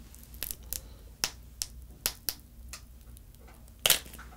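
Thin clear plastic wrapper crackling in a series of short sharp snaps as it is peeled off a globe-shaped Planet Gummi jelly, the loudest snap near the end.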